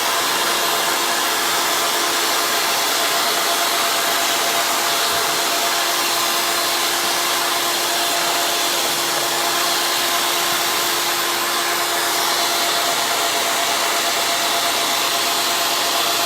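Electric drill running flat out, driving a jump-ring cutting machine: a steady motor whine over a loud hiss. The drill is turning too fast for the machine, so it cuts the wires but not clean rings.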